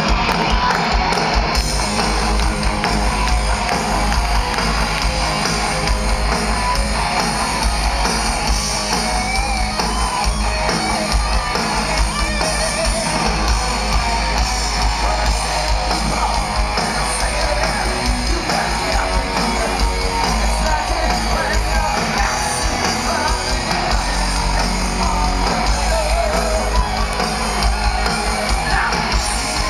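Heavy metal band playing live and loud, led by electric guitar, heard from the audience.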